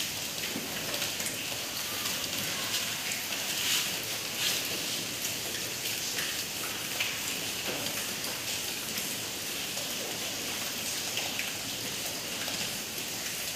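A board duster rubbing marker writing off a whiteboard: a steady dry hiss with a few faint light knocks.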